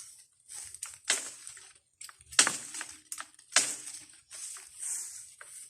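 Irregular rustling and crunching of leaves and branches: about eight short noisy bursts, uneven in spacing and loudness.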